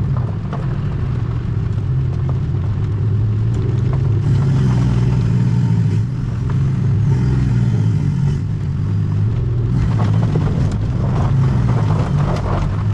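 A vehicle engine running steadily with a low hum, with a rushing noise that comes up for a few seconds in the middle.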